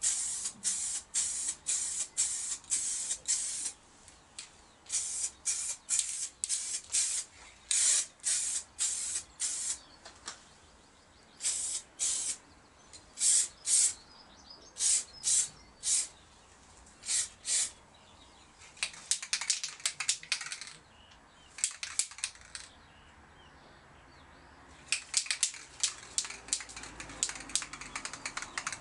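Aerosol spray can fired in many short hissing bursts, about two or three a second at first, then in spaced groups. Later, from about two-thirds of the way through, the bursts give way to a quick clicking rattle.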